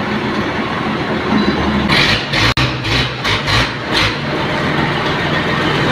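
Sawmill machinery with a heavy engine running steadily. About two seconds in comes a run of five or six loud rushing surges lasting about two seconds.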